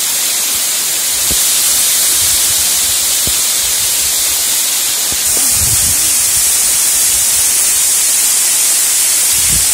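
Sivəkəran waterfall pouring down a rock face and splashing over boulders into a pool, a steady rushing hiss. It steps louder about a second in and again about five seconds in. A few soft low bumps sound under it.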